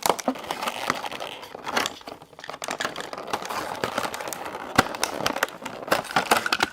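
Plastic toy packaging being handled and opened: continuous crinkling and crackling with sharp clicks and snaps.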